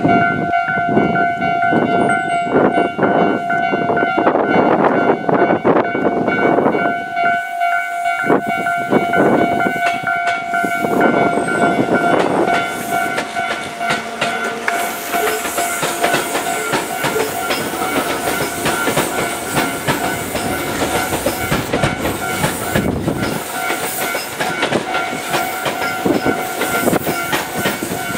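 A Tōbu Railway train running through a level crossing, its wheels clacking over the rail joints, while the crossing's warning bell rings on as a steady repeating tone.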